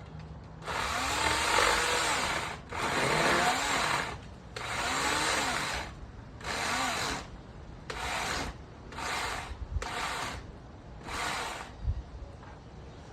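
Small electric chainsaw cutting a branch in eight bursts of the trigger. Each time the motor's whine winds up and then falls away, and the bursts grow shorter toward the end.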